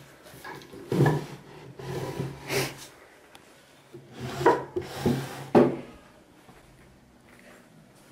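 Wooden furniture being handled by hand: a few separate scrapes, rubs and knocks of hands and hinges on wood, quieter near the end.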